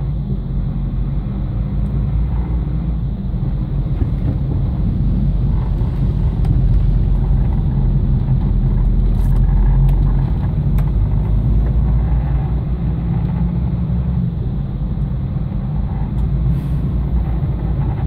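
Truck engine and tyres on a wet road, heard from inside the cab: a steady low rumble that swells a little about halfway through.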